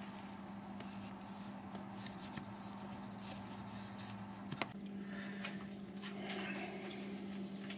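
Low steady hum with faint rustling and handling noises. About four and a half seconds in there is a sharp click, and a deeper part of the hum stops.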